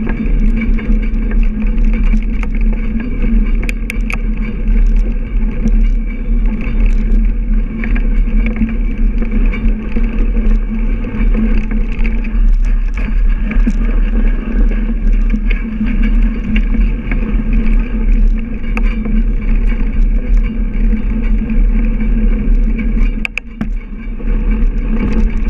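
Bicycle riding along a packed-snow road, heard from a camera on the handlebars: a steady rumble of tyres on snow and wind on the microphone, with scattered clicks and rattles. It dips briefly near the end.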